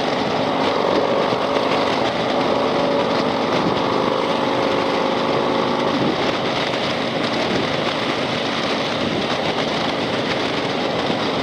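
Harley-Davidson Street Glide's V-twin engine running under way, with steady wind and road noise.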